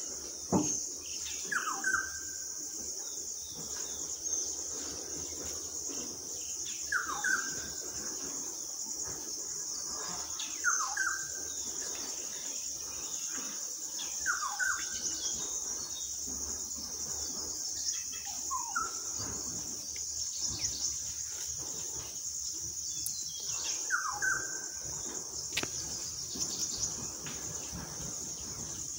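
Steady, high-pitched insect drone, with a bird's short falling call repeated about six times, roughly every four seconds.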